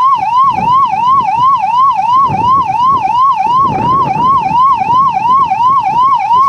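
Ambulance siren sounding a fast yelp, its pitch rising and falling about three times a second without a break, over irregular low background noise. It keeps sounding because the ambulance is stuck in a blocked road and cannot get through.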